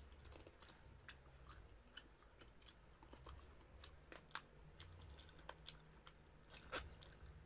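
Close-miked chewing: soft wet mouth clicks and smacks of someone eating, with a sharper smack about four seconds in and a louder burst of smacking near the end.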